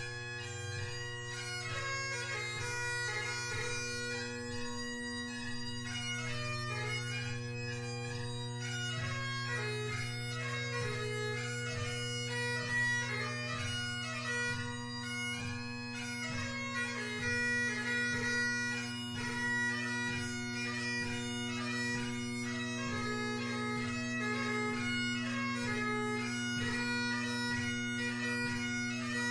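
Great Highland bagpipe (McCallum AB6 drones, G1 blackwood chanter) playing a lively tune. The bass and tenor drones hold a steady chord under the chanter's quick melody with its grace-note ornaments.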